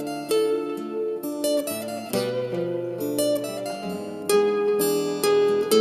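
Acoustic guitar playing a single-note solo melody in A minor, picked note by note over a looped guitar backing track of held chords.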